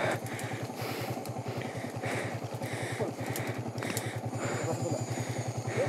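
Yamaha MT-15's single-cylinder engine idling steadily, with an even, rapid beat of about a dozen pulses a second.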